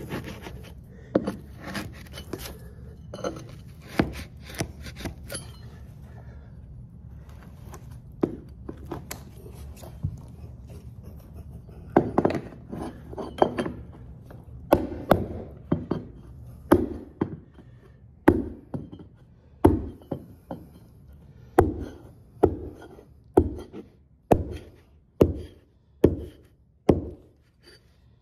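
Carpet edge being worked into place along a hardwood floor with a metal carpet stair tool: scattered scrapes and taps at first, then from about halfway a steady run of sharp knocks, a little more than one a second.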